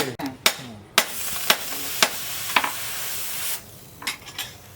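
Hand hammer striking hot brake-disc steel on an anvil about twice a second, over a steady hiss that cuts off about three and a half seconds in; a few lighter taps follow.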